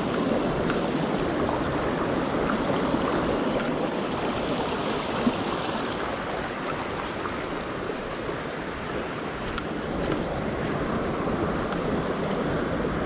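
Shallow rocky stream rushing steadily over stones, with one brief knock about five seconds in.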